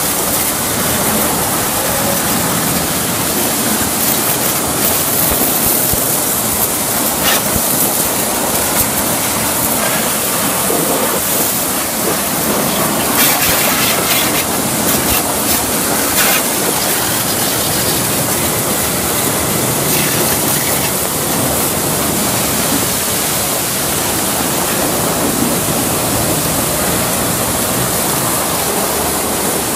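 Pressure washer's high-pressure water jet spraying onto a truck's tyres, wheels and body panels: a steady hiss of spray with a few brief, louder spatters as the jet strikes the surfaces.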